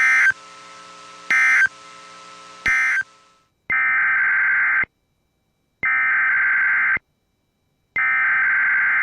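Emergency Alert System SAME data bursts: a harsh, buzzy digital screech. Three short end-of-message bursts close out a NOAA Weather Radio test over the station's hum. Then, after a cut to silence, three longer header bursts, each about a second, open the next alert test.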